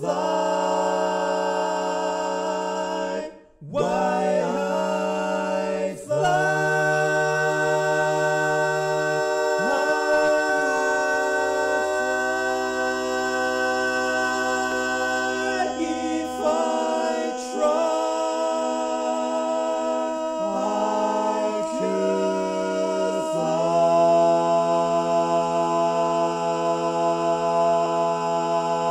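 Barbershop-style a cappella harmony singing a tag: close chords held for several seconds at a time and moving to new chords, with a brief break about three seconds in and a long held chord near the end.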